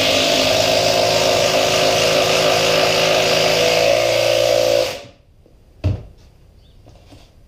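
Cordless drill running steadily into the cedar end board, driving in a lag screw, then stopping suddenly about five seconds in. A single knock follows about a second later.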